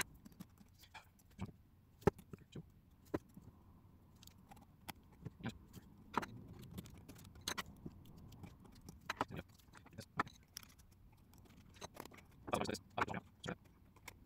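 Scattered small clicks and taps of a precision screwdriver, tiny screws and a mirrorless camera body being handled on a paper-covered desk. A closer group of louder clicks comes near the end.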